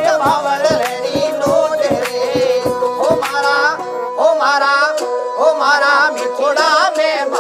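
Background song: a singing voice with ornamented, wavering lines over a steady drone, with regular drum strokes that stop about four seconds in.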